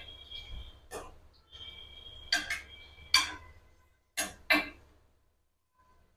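Steel ladle knocking against the rim and side of a steel kadai while fritters are turned in hot oil: about six sharp metallic clinks at uneven spacing, some ringing briefly.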